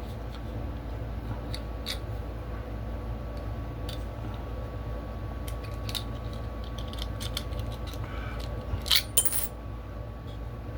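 Small metal clicks and scrapes of a key extractor working in a lock's keyway to pull out a stuck key, over a steady low hum. There is a short cluster of louder metal clinks near the end.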